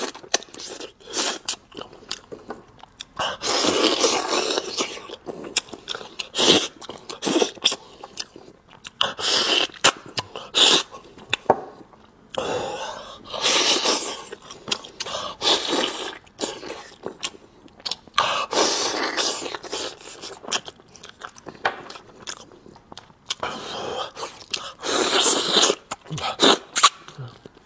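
Close-miked eating sounds: a person chewing meat off spicy braised ribs, with many wet smacks and clicks, and about five longer, breathier sounds of roughly a second each spread through.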